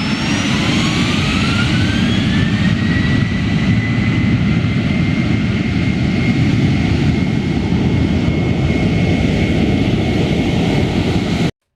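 Jet engine running with a heavy rumble, its whine rising over the first few seconds and then holding steady; it cuts off suddenly near the end.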